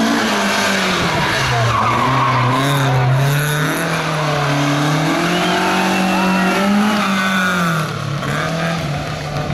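Classic car's engine revving up and down, its pitch rising and falling every second or so as it is driven hard through tight turns, with tyres squealing.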